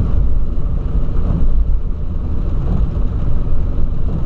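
Cabin noise of a 2008 Volkswagen Polo driving on a rain-soaked road: a steady, loud low rumble of engine and tyres on the wet surface.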